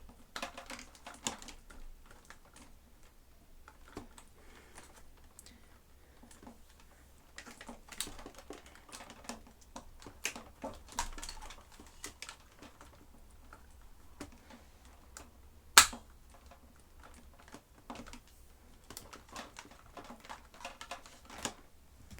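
Scattered light clicks and knocks of a Dyson upright vacuum's plastic parts being handled and set up, with no motor running. One sharp, loud click comes about three-quarters of the way through.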